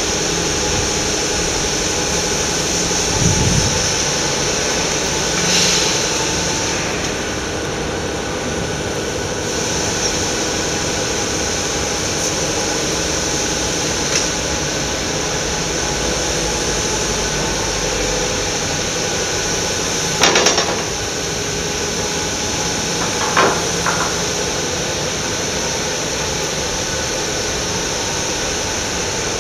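Steady workshop machinery noise, a low hum under a high hiss, broken by a few short metallic knocks; the loudest is a double clank about twenty seconds in.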